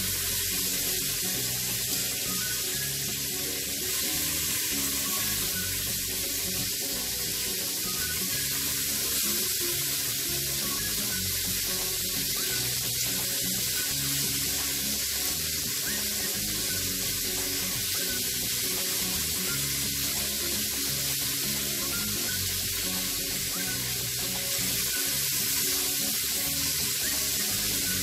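Shrimp sizzling in melted butter on a hot sizzling plate, a steady crackling hiss, with background music underneath.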